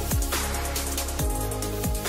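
Electronic background music: sustained synth tones over deep bass-drum hits that drop sharply in pitch, with crisp percussion on top.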